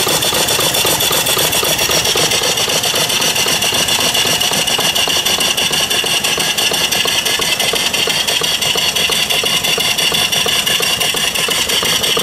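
Vertical single-cylinder live steam engine running steadily on boiler steam: a fast, even beat of exhaust chuffs over a continuous steam hiss.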